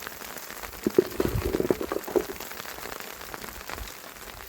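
Steady patter of rain, with a few knocks and clatters about one to two seconds in.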